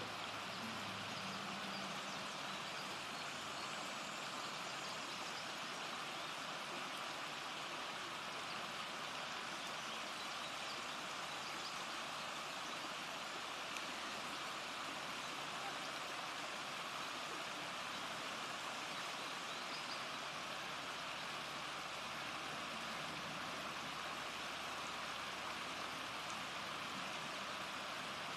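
Shallow river water running over a rocky riffle: a steady, even rush. A faint low hum lies under it for the first couple of seconds.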